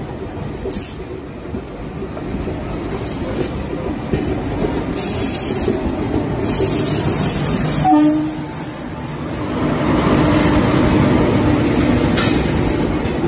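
An Indian Railways WAP-4 electric locomotive and its coaches passing close on the next track, heard from a moving train, with a continuous rumble and rush of wheels on rails. The noise swells in the last few seconds as the coaches go by, and a brief horn note sounds about eight seconds in.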